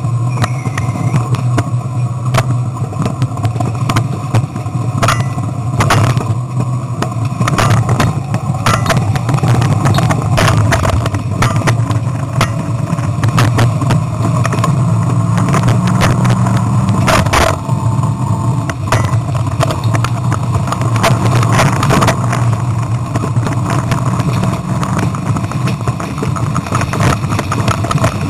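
Rover 3.5-litre V8 of a Bowler Tomcat Land Rover running hard, heard loud from inside the cabin and overloading the camera's microphone. Frequent knocks and clatter come from the vehicle on rough ground, and the engine note rises briefly about halfway through.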